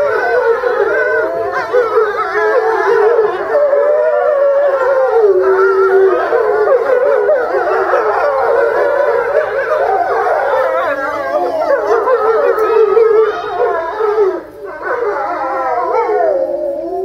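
Pack of gray wolves howling in chorus, several voices overlapping and gliding up and down in pitch, with a brief lull about two-thirds of the way through before the howls resume.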